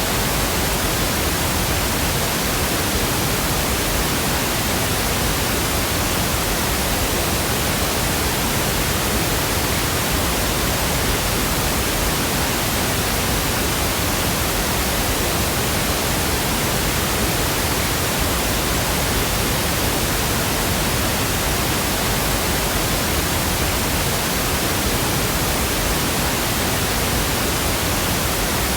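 Steady pink noise: an even, unbroken hiss spread across the whole range, with no changes.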